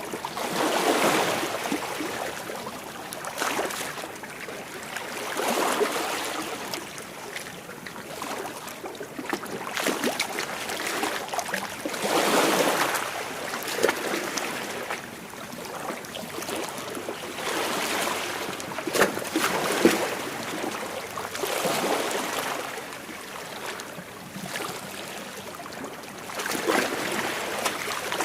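Sea waves breaking and washing against rocks, in a slow, irregular rhythm of swells every few seconds, with sharper splashes at some peaks.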